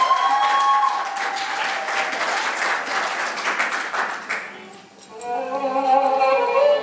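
Theatre audience applauding, dying away over the first five seconds; then recorded Arabic music for a Saidi dance starts with long held violin notes.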